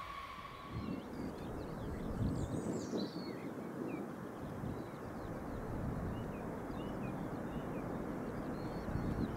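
Low rumble of a distant Boeing B-52's Pratt & Whitney TF33 turbofan engines across the airfield, with small birds chirping throughout. In the first second a closer, steady jet engine whine cuts off abruptly.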